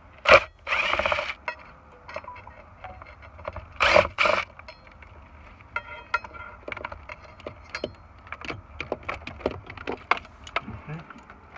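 A cordless drill/driver run in short bursts at a wiring terminal strip: a burst near the start, a spell of about a second just after it, and another two bursts about four seconds in. It is followed by a run of small clicks and rattles as wires and terminals are handled.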